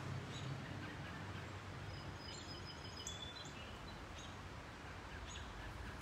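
Backyard ambience: wild birds chirping here and there over a steady low outdoor hum, with a short thin whistled call about two to three seconds in.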